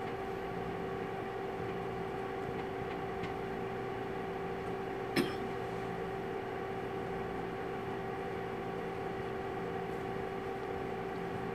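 Steady mechanical room hum, such as ventilation or a projector fan, with a few even, unchanging tones, and a single short click about five seconds in.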